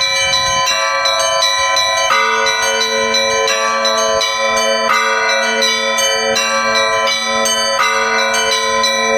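Orthodox church bells rung in a festive Easter peal: small bells struck in quick succession, several strokes a second, over sustained ringing tones. A deeper bell comes in about two seconds in and keeps sounding under the smaller ones.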